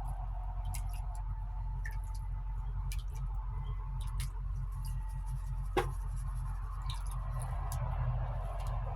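Gravel and pebbles clicking and scraping in a gold pan as the oversize material from classified sand is panned out, with scattered small clicks and one sharper click about six seconds in, over a steady low hum.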